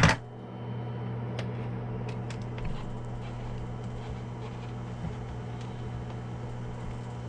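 A sharp knock at the very start, then a few faint clicks and taps of hands handling radio gear and cables inside a foam-lined plastic hard case, all over a steady low hum.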